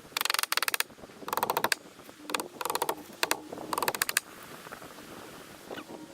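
Rapid mechanical clicking in about six short bursts, close together over the first four seconds, then fainter.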